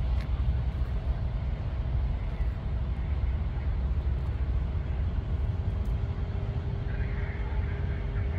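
Jet aircraft engines running at the airport: a steady low rumble with faint humming tones, and a higher hum joining near the end.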